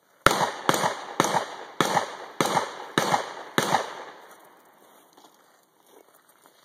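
Shotgun fired seven times in quick succession, about one shot every half second, each shot trailing off in a short echo, followed by a few faint pops.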